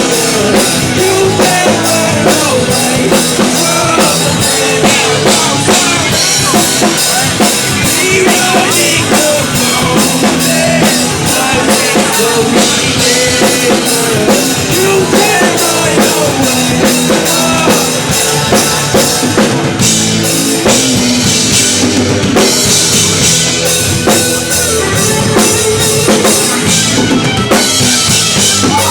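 Live rock band playing loudly, with a steady, driving drum-kit beat.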